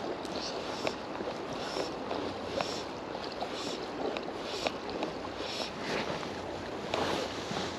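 Shallow river water flowing and rippling over stones, a steady wash with scattered small splashes and ticks.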